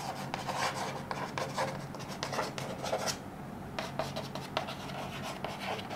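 Chalk writing on a blackboard: a run of short scratching and tapping strokes as letters are formed, with a brief pause a little past halfway.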